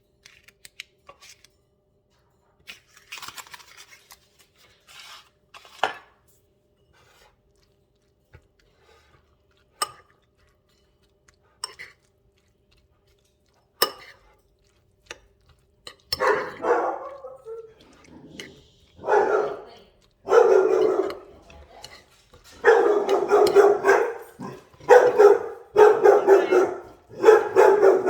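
A few scattered light clicks and knocks, then from a little past halfway a dog barking in a run of loud, repeated bouts.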